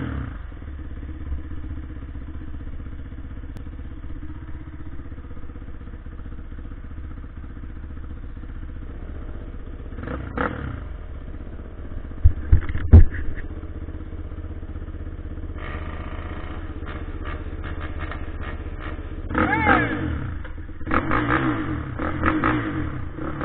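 Kawasaki KFX 450 quad's single-cylinder four-stroke engine idling steadily, with a short throttle blip about ten seconds in and several revs near the end. A few loud sharp knocks come in the middle.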